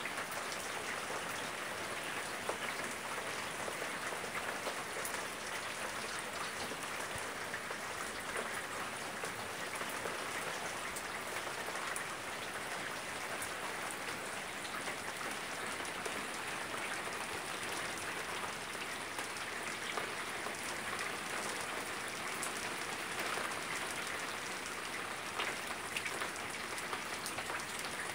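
Steady rain falling on a wet wooden deck: an even hiss of many drops, with single drop taps standing out here and there.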